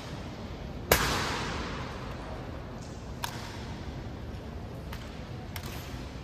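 A single sharp crack about a second in, trailing off in a long echo, then a few faint clicks over steady background noise.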